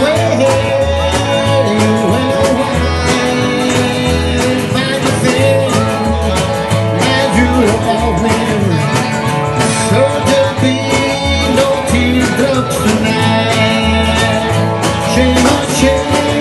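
Country band playing an instrumental break: upright bass and drums keep a steady beat under acoustic and electric guitars and harmonica, with bending lead notes on top.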